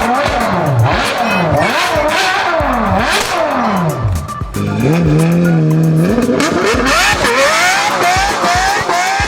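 Cartoon-style toy vehicle sound effects: repeated swooping rises and falls in pitch like engine revs and tyre squeals, a steady held tone around the middle, then a run of rising glides near the end.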